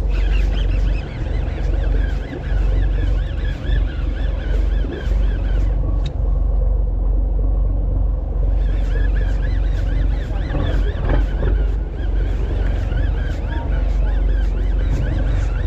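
A boat's engine running with a steady low rumble, mixed with wind noise on the microphone. Over it comes a rapid, repeating, high wavering sound that stops for a couple of seconds about midway and then resumes.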